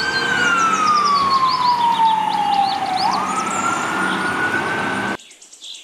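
Fire engine siren wailing: its tone falls slowly for about three seconds, then quickly climbs back up. The sound cuts off suddenly about five seconds in.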